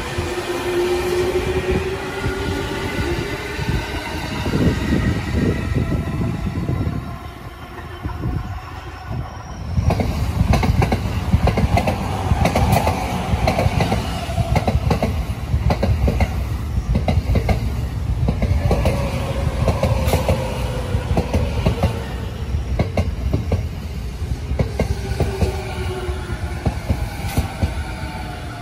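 JR electric commuter trains running through the station, their inverter motors whining and changing pitch. About ten seconds in it gets louder as an E217 series train moves past close by, with wheel rumble and clicks over the rail joints.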